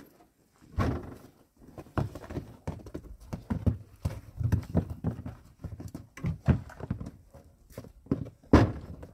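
Irregular footsteps and walking-stick taps on hard ground, a knock or thud about every half second, with one louder thump near the end.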